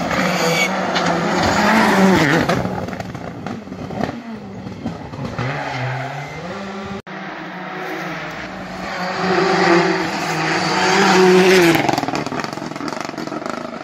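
Rally cars passing at speed on a special stage, the engines revving hard, the pitch rising and falling through gear changes. Two passes: one loudest about two seconds in, the other building to its loudest near the end.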